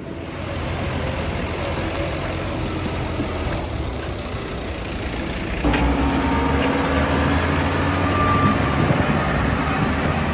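Heavy truck engine running steadily, stepping up abruptly to a louder, fuller running sound a little past halfway.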